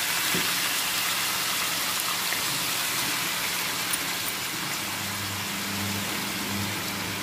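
Raw minced mutton sizzling in hot oil in a non-stick kadai: a steady frying hiss. A low steady hum sits underneath and grows stronger about five seconds in.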